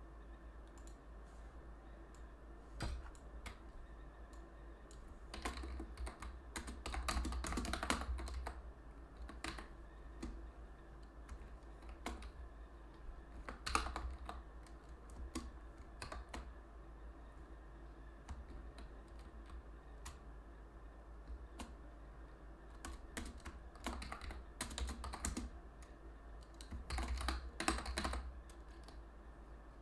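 Computer keyboard typing in short bursts of keystrokes with pauses between, over a faint steady low hum.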